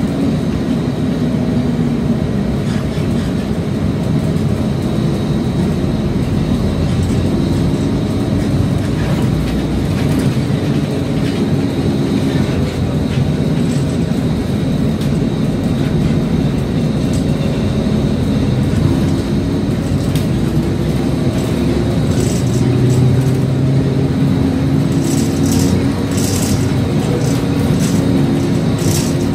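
Inside a moving city bus: the engine runs under steady loud road rumble, its note rising about three-quarters of the way through as the bus speeds up. A run of sharp rattles near the end.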